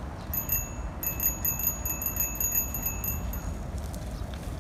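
Bright bell-like chime ringing in rapid repeated strikes on one steady pitch. There is a short run near the start, then a longer run that stops about three and a half seconds in.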